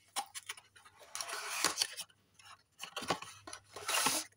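Cardboard face-wash carton and plastic-wrapped bottle being handled: a string of small clicks and taps with scraping rustles, loudest about a second in and again near the end as the bottle slides out of the carton.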